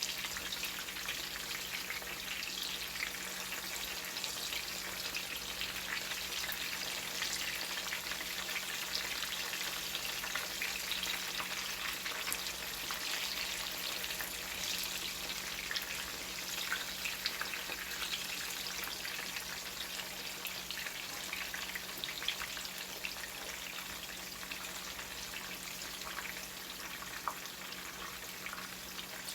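Zucchini frying in hot oil in a pan: a steady crackling sizzle with scattered small pops, over a faint steady low hum.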